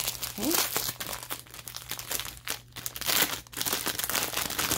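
Clear plastic packaging crinkling and rustling in irregular bursts as it is handled: a cellophane-wrapped bundle of small bags of diamond painting drills.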